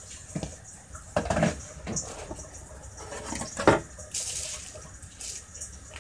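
Pot of chicken broth bubbling at the boil just after egg noodles go in. A few short knocks and scrapes come as a plastic spatula stirs the noodles under, the sharpest a little before four seconds in.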